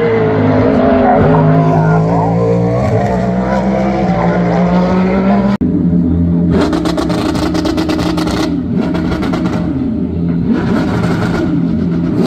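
Race car engines: one engine note rising and falling, then an abrupt cut about five and a half seconds in to another race car engine running hard with a harsh, rasping note that eases off twice.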